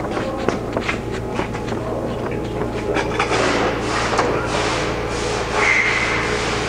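Rubbing and light clicking as a dial indicator mounted on a Bridgeport Series I vertical milling machine is swept around by hand, over a steady low hum. The clicks are thickest in the first three seconds, and a short high whine comes in near the end.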